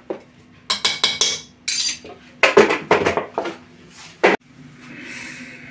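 A metal teaspoon and spice jars clinking and knocking against an aluminium cooking pot and the counter: two clusters of quick clatters, then one sharp knock about four seconds in.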